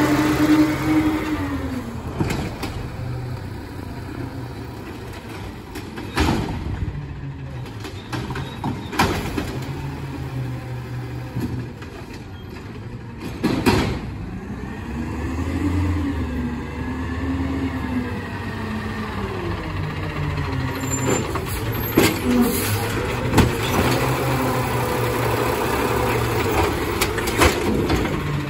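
Peterbilt 520 side-loader garbage truck's engine running, its pitch rising and falling several times as the truck pulls away, drives up the street and pulls in, with a few short sharp knocks along the way.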